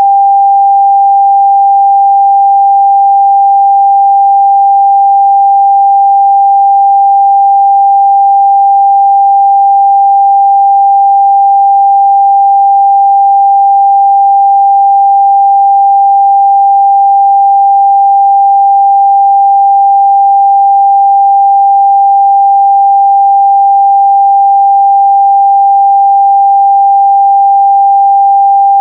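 Pure 794 Hz sine-wave test tone, one steady pitch held at a constant loud level.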